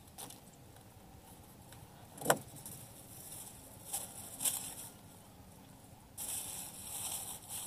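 Handling noise from a nylon fishing handline being worked by hand in a wooden boat: a sharp knock about two seconds in, two brief rustles a little later, and a longer rustle near the end.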